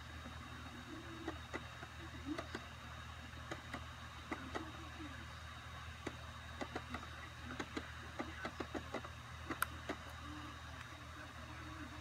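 A steady low hum with irregular sharp clicks and ticks scattered over it, coming thickest in the second half, from a laptop booting a ReactOS live CD.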